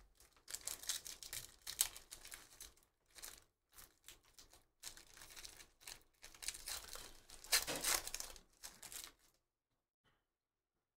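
A foil trading-card pack crinkling and tearing as it is ripped open by hand, in a run of short rustles. The loudest tear comes about three-quarters of the way through.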